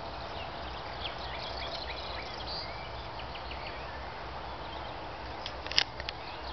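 Small birds chirping over a steady background hiss, with a sharp click near the end and a couple of fainter clicks just after it.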